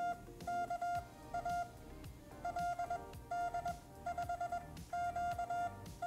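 MFJ-418 pocket Morse code tutor sending random letters and numbers in Morse code: quick strings of short and long beeps at one steady pitch, with brief gaps between characters.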